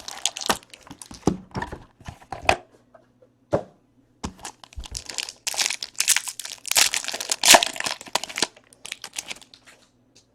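Plastic wrapping on a trading card box being torn open and crumpled: a run of sharp crinkles and crackles, thickest in the middle, with short pauses between.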